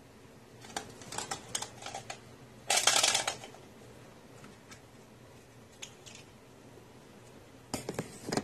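Close handling noises: a run of small clicks and taps, then a louder rustling scrape about three seconds in, and another quick cluster of clicks near the end.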